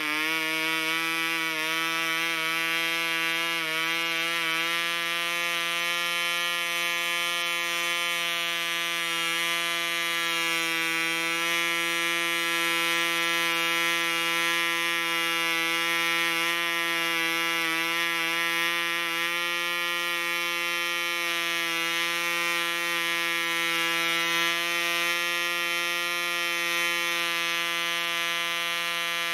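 PAW 1.49cc two-stroke model diesel engine running steadily on an 8x4 propeller, a continuous buzz. Its pitch wavers slightly for the first few seconds as the compression screw is turned by hand, then holds even.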